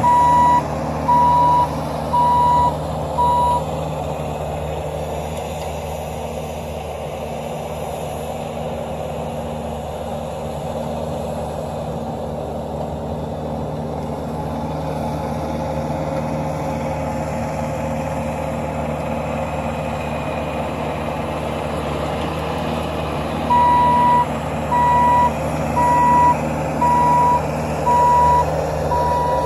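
Bobcat tracked skid steer's diesel engine running steadily while its backup alarm beeps about once a second as it reverses. The beeping stops a few seconds in and returns over the last six seconds or so.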